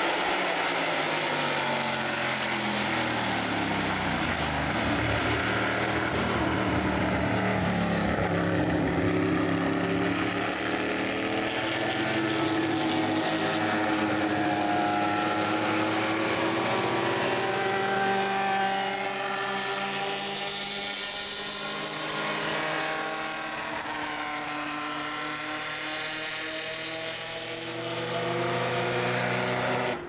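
Formula 5000 open-wheel race cars' V8 engines at racing speed, several cars passing one after another. Their engine notes rise as they accelerate and step through the gears and fall away as each car goes by.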